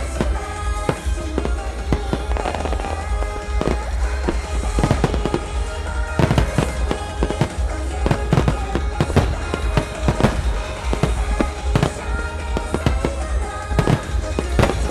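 Aerial firework shells bursting again and again, with sharp bangs and deep booms, over a pop song playing loudly.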